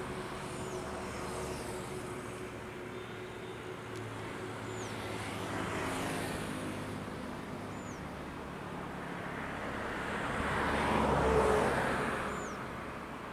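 Road traffic passing, swelling twice and loudest about eleven seconds in, over the faint steady hum of an Airbus A320 airliner on final approach. A few short, high, falling chirps sound now and then.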